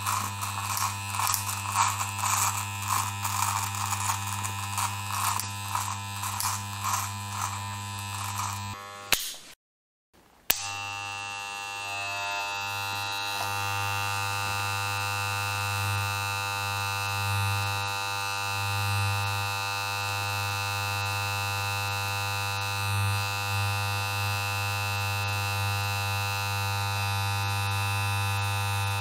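Electric hair clippers running with a steady, low-pitched buzz. For the first third, a rhythmic raspy crackle rides over the buzz as the blades cut through hair. The sound drops out for about a second, then the clippers buzz on steadily with slight swells.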